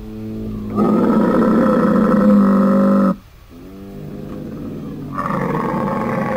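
Camel calling: two long, rough calls, a strange sound. Each starts softer and swells louder, and the first breaks off about three seconds in.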